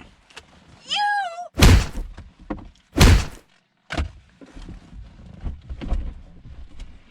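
A short high-pitched vocal cry, then two loud thuds about a second and a half apart and a softer knock, with low rustling after.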